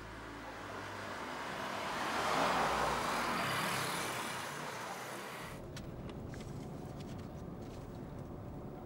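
A vehicle driving past on the road: its engine and tyre noise swells to a peak about two and a half seconds in, then fades. Just after halfway it drops suddenly to quieter, steady traffic noise with a few faint clicks.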